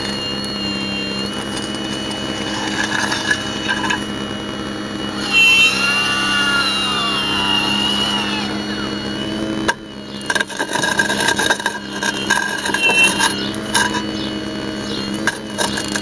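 Radio-controlled Hitachi 870 model excavator's hydraulic pump running with a steady whine, its pitch rising and falling for a few seconds as the boom and arm move under load. From about ten seconds in, irregular knocks and clatter join it as the excavator works the broken concrete.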